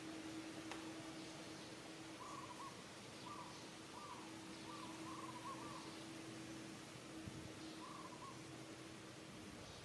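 Faint, short wavering animal calls, singly and in a quick run of several in the middle, over a steady low hum.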